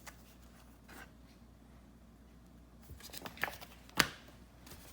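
Handling noise from unpacking a boxed kit. Faint room tone, then from about three seconds in a few light taps and rustles, and one sharp click about a second later.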